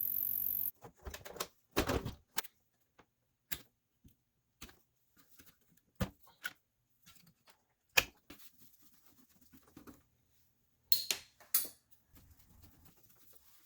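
Irregular sharp clicks and light knocks of hard objects being handled, a few seconds apart, after a steady hiss cuts off under a second in.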